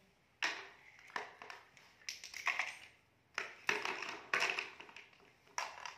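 Plastic toy sea animals and toy fishing rods being handled, a string of short, uneven clatters and scrapes of hard plastic.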